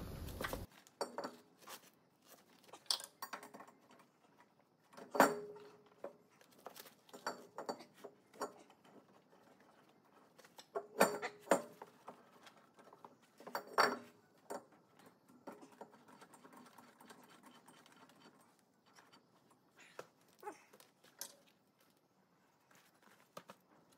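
Scattered metal clanks and knocks as a welded steel riser block is set into a lathe chuck, three louder ones with a brief ring.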